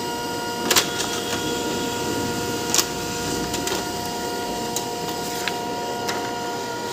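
Brother HL-1110 laser printer running as it prints and feeds out a page: a steady mechanical whine with a few sharp clicks of the paper feed, the whine stopping at the end of the print.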